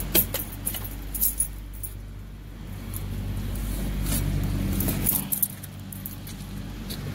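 A steady low engine hum with scattered clicks and rustling from something being handled close by. The hum fades somewhat after about five seconds.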